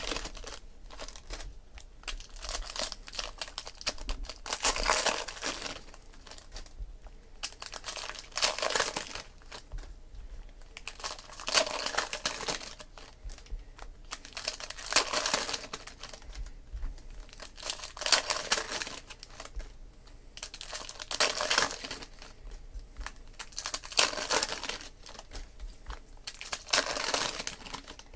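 Foil wrappers of Panini Prizm football card packs crinkling and tearing as packs are ripped open one after another, in bursts every few seconds.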